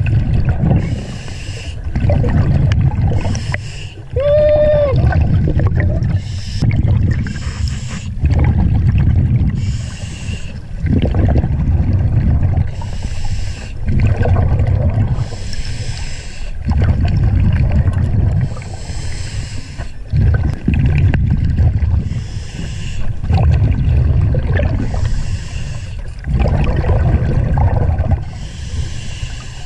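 Scuba diver breathing through a regulator underwater: a hiss of each inhalation alternating with the rumble of exhaled bubbles, about every two to three seconds. A short voiced grunt sounds through the regulator about four seconds in.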